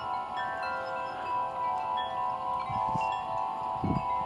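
Wind chimes ringing in the wind: several tubes keep sounding while new notes are struck every second or so. Two brief low rumbles of wind hit the microphone near the end.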